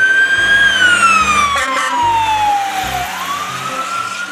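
Siren of a Newark Fire Department ladder truck wailing: one slow glide that rises a little, falls steadily for about two seconds, then climbs again near the end. A short rattling burst cuts in about a second and a half in.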